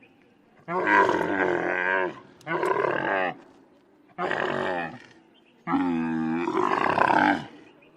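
Camel calling: four separate loud, rough calls with short pauses between them, the first and last longest, each wavering in pitch.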